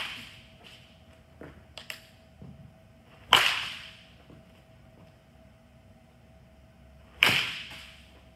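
Baseball bat striking pitched balls: a sharp crack about every four seconds, three in all, each echoing briefly in the indoor cage. Fainter knocks fall between the first two hits.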